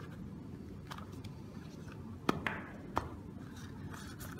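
Hands handling a soft fabric carrying pouch for wireless earbuds, opening it: light rustling with a few small clicks and taps.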